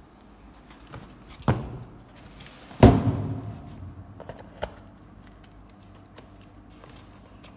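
Two thumps from a cardboard box being handled and turned, the second and louder about three seconds in, followed by faint scattered clicks and rustles of cardboard.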